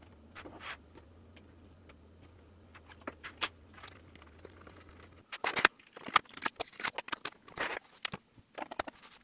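Hands handling a 3D-printed plastic turntable base while the servo wire is pressed into its channel: faint scrapes and light clicks, then a run of louder sharp clicks and knocks from about five seconds in.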